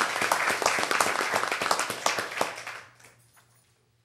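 Audience applauding: a dense patter of many hands clapping that dies away about three seconds in.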